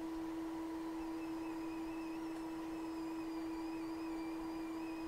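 A steady hum at a single pitch, with a fainter high whine that wavers slightly in pitch and comes in about a second in.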